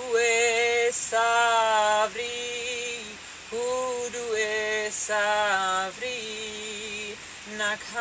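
A woman's voice singing wordless light-language tones: a run of held notes, each about a second long, some wavering slightly, with quieter held notes between the louder ones.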